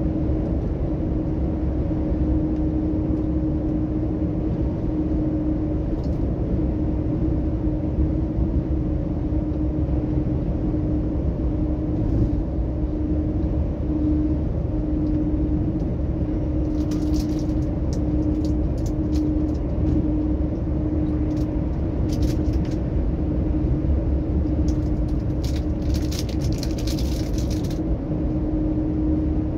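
Heavy truck cruising on a wet highway, heard from inside the cab: a steady drone of diesel engine and tyres with a constant hum and deep rumble. Brief bursts of crackling hiss come a little over halfway through and again for a couple of seconds near the end.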